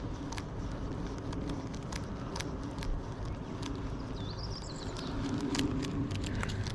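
Steady low rumble of road traffic, swelling around five to six seconds in, with scattered sharp clicks and a short whistled call about four and a half seconds in.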